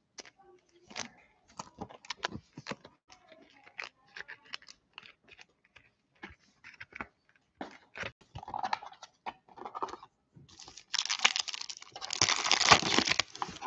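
Scattered light clicks and crinkles of wrapper handling, then about eleven seconds in, a Panini Select football card pack's wrapper torn open with a loud crinkling tear lasting a few seconds.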